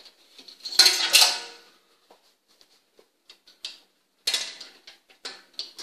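Metal hooks of elastic bungee cords clattering and clicking against the steel frame of a ski-simulator exercise machine as a cord is stretched and hooked into place. There is one loud rattling clatter about a second in, then several lighter clicks and knocks.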